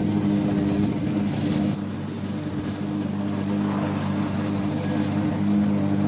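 Petrol walk-behind lawn mower engine running steadily at constant speed while cutting grass, with a slight dip in loudness about two seconds in.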